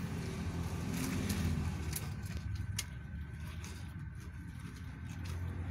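Low rumble of passing road traffic, with a few faint clicks and rustles as clothing is folded on the counter.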